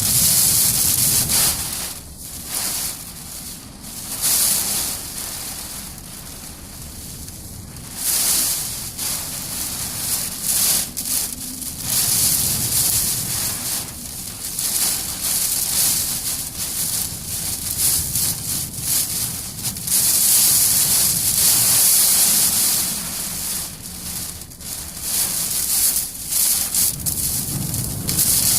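Typhoon wind and heavy rain lashing a car, heard from inside the cabin: a hiss of rain on the body and glass that swells and eases with each gust, over a low rumble of wind buffeting the car. The gusts ease for several seconds early on and are strongest about two-thirds of the way through.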